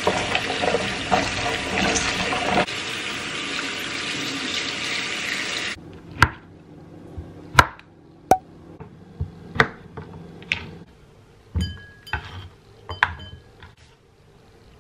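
Kitchen tap water running steadily, then shut off abruptly about six seconds in, followed by scattered knocks and clinks of dishes and utensils.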